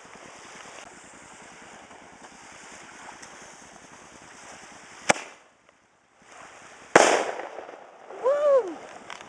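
A cherry bomb firework going off: a sharp crack about five seconds in, then a loud bang about seven seconds in that dies away over a second, over a steady low hiss.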